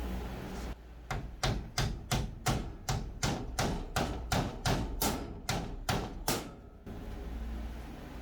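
Hammer blows struck at a steady pace, about sixteen sharp strikes at roughly three a second, stopping about seven seconds in.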